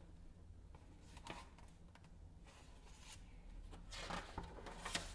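Page of a picture book being turned: a few soft paper rustles, the clearest near the end, over a faint steady low hum.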